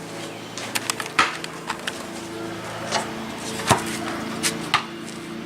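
Irregular sharp knocks and taps from work going on in the background, about a dozen spaced unevenly, the loudest about a second in and again near four seconds, over faint steady low tones.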